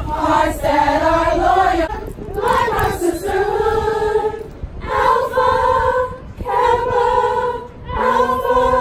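A group of women singing together a cappella, holding long notes in slow phrases with short breaks between them. A lower held note joins near the end.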